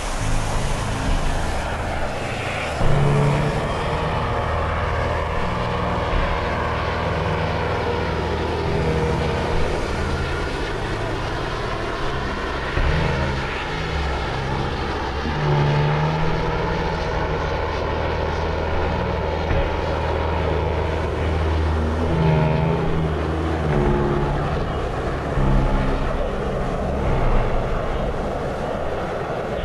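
Jet engines of two F/A-18 Hornet fighters flying past in formation: a steady roar over a low rumble, with a whining tone that slowly slides down and up as they pass.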